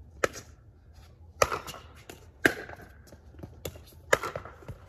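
Pickleball rally: paddles strike a hollow plastic pickleball and the ball bounces on the hard court, a string of sharp pops about a second apart.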